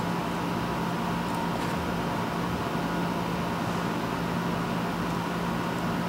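Steady mechanical hum with an even hiss, like a fan or ventilation unit running, with a couple of faint light ticks about a second and a half in.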